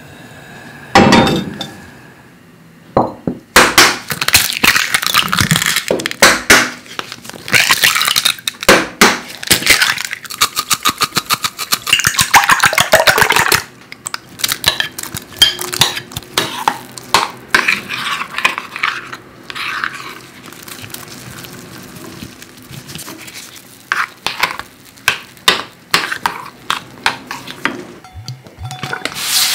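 Eggs being beaten in a glass bowl: a utensil clinks against the glass in a fast, dense run for about ten seconds, then in slower, scattered clinks and stirs.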